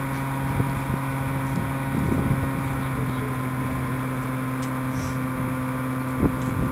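Electric motor and propeller of an RC FPV plane running at cruise throttle: a steady drone with a low hum and wind noise, with one short knock near the end.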